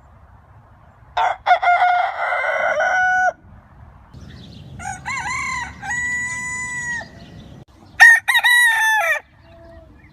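Roosters crowing: three separate crows a second or two apart, the middle one ending in a long held note.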